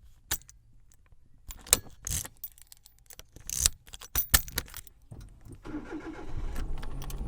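A car engine being started. First come a series of sharp clicks and jangles as the keys are handled, then, about two-thirds of the way through, the engine catches and settles into a steady running rumble.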